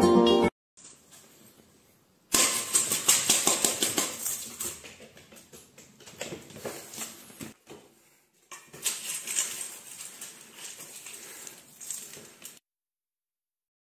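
Dry cat food clattering and crunching in a stainless steel bowl as a cat eats from it: rapid runs of small clicks. The first run starts suddenly and loud about two seconds in and fades; a second run follows a little past the middle.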